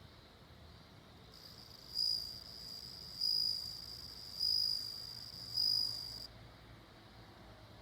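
Japanese bell cricket (suzumushi) singing: a high, clear ringing song with four louder swells about a second apart, which stops about six seconds in. A faint low hum lies underneath.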